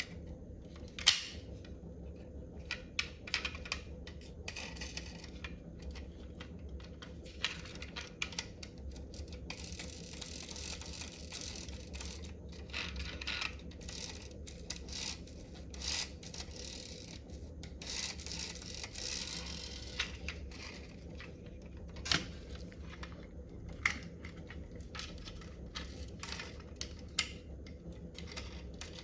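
Objects being handled by hand, most likely a toy and its packaging being unboxed: irregular clicks, taps and short rustles, one sharper click about a second in and another about 22 seconds in, over a low steady hum.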